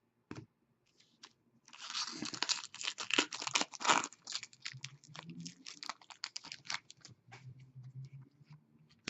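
Hockey trading cards and their plastic or foil packaging being handled at close range: a dense crinkling and crackling stretch starting about a second and a half in, thinning to scattered small clicks and rustles.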